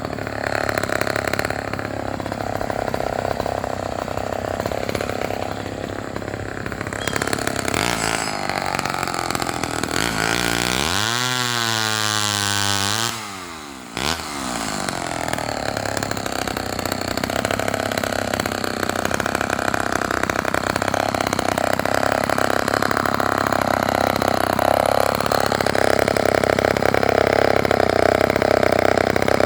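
Homelite XL-12 two-stroke chainsaw with a 20-inch bow bar running. About halfway through, the engine note glides up and then down, and the sound briefly drops away before the saw picks up again and runs steadily.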